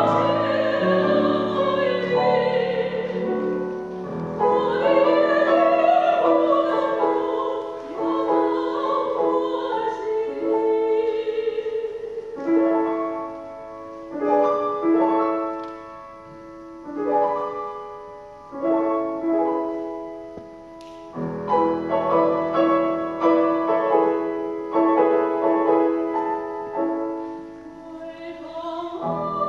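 A woman sings in classical operatic style with vibrato, accompanied by a grand piano. Partway through, the voice drops back and the piano carries on alone for a stretch with repeated notes, before the singing returns.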